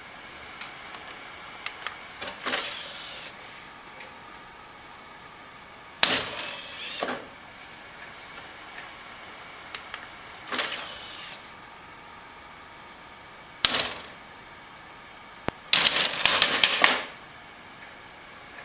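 A desktop computer's DVD drive tray opening and shutting again and again: about five short mechanical whirs with clicks, the longest and loudest near the end.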